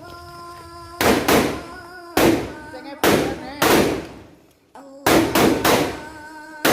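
A series of about eight loud, sharp bangs in irregular clusters, each dying away quickly, over a faint steady background of tones.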